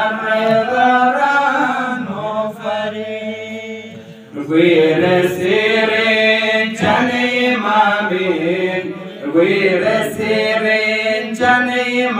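Male voice chanting a Balti qasida unaccompanied, in long held melodic lines. One line dies away and a new line starts about four seconds in.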